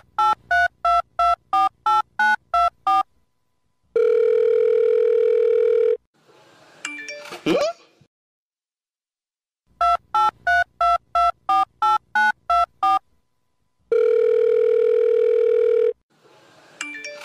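Touch-tone phone keypad tones: about ten quick beeps dialing a number, then a steady tone for about two seconds, then a short sliding sound. The sequence plays twice, matched to the cat's paw pads being pressed as if they were phone buttons.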